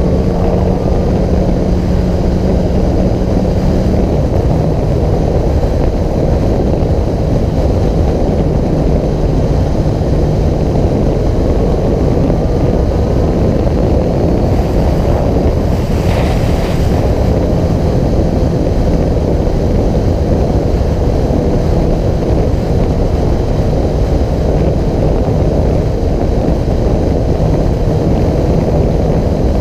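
A vehicle under way, heard as a steady low engine drone under loud wind rumble on the microphone, with a short hiss about sixteen seconds in.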